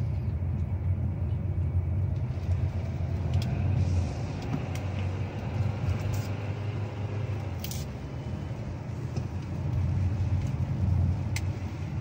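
2024 Kia Sportage Hybrid's petrol engine running under acceleration, heard inside the cabin as a low, steady drone. It is the annoying noise that comes on whenever the hybrid needs the engine for more power and stops when the driver lifts off.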